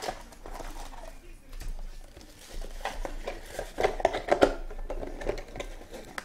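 Cardboard trading-card boxes being picked up, shuffled and set down by hand: a run of light knocks and clatters with some rustling of packaging, busiest about four seconds in.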